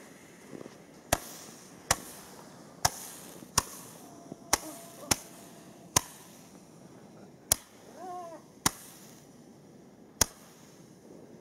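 Ground-lit firework firing a string of ten sharp shots, irregularly spaced about a second apart.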